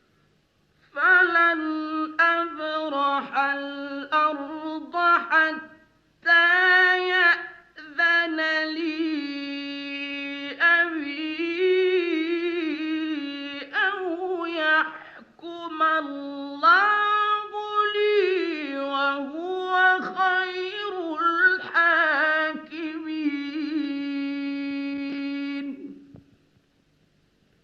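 A man's solo voice reciting the Quran in the melodic, ornamented mujawwad style: long held notes that waver and bend in pitch, in phrases separated by short breaths. It starts about a second in and stops a second or two before the end.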